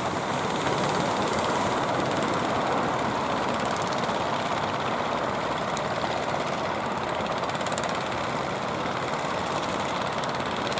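Steady drone of fishing boats' engines out on the water, blended with the rush of sea and wind.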